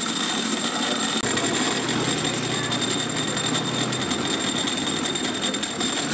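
Electric cotton candy machine running, its motor spinning the spinner head with a steady whirring whine, amid street noise. A low hum comes in about a second in and stops about four seconds in.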